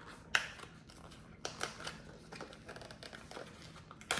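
Cardboard packaging being opened and handled: rustling and crinkling with a few sharp clicks and taps, the loudest about a third of a second in and another near the end.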